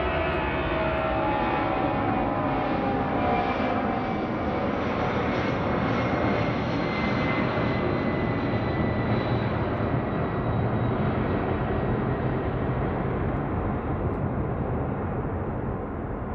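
C-17 Globemaster III's four turbofan jet engines at high power as it climbs away after takeoff: a steady jet rumble with a high whine that falls slowly in pitch, easing slightly near the end as the aircraft recedes.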